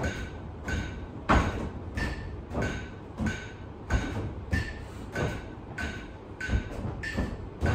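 Phone metronome app beeping at an even step-test beat, about 1.6 beeps a second, with feet thudding as a person steps up and down onto a chair in time with it.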